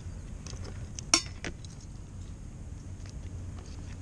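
A single sharp metallic clink about a second in as fishing gear is handled, with a few faint ticks over a low steady rumble.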